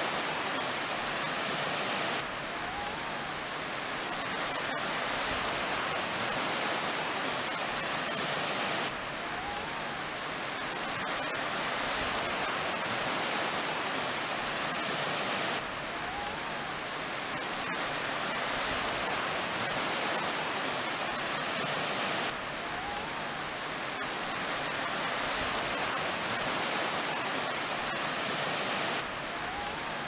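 Sea surf: a steady rush of breaking waves and washing water, from a short recording looped so that it drops and restarts abruptly about every seven seconds.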